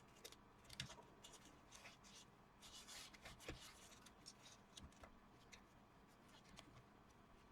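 Near silence with faint handling noises: scattered small clicks and a brief rustle about three seconds in, as a piece of carbon filter and plastic case parts are handled.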